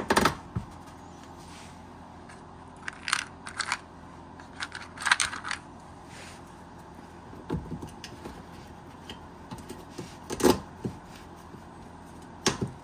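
Plastic push-in retainer clips being handled and fitted into the underside of a car's front bumper cover: scattered small clicks and rattles, the loudest about ten seconds in.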